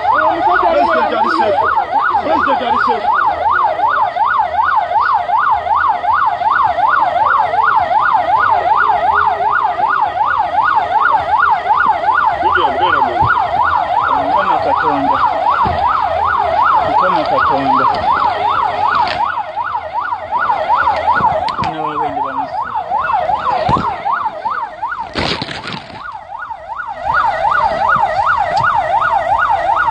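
Emergency vehicle siren sounding a fast yelp, its pitch rising and falling about three times a second. It fades for a few seconds about two-thirds of the way through, where one loud short burst of noise stands out, then comes back at full strength.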